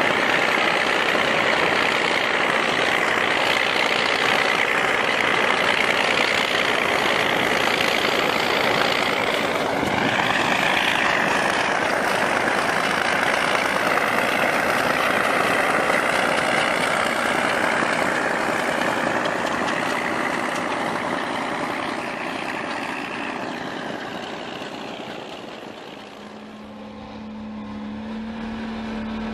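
Truck-mounted rotary snowblower cutting through deep snow: a loud, steady rush of engine and spinning blower throwing snow. It fades out near the end, and a lower steady engine hum takes over.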